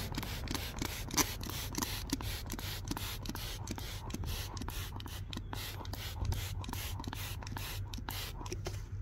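K&N filter cleaner pumped from a trigger spray bottle onto a K&N panel air filter: quick, repeated hissing sprays, about three a second.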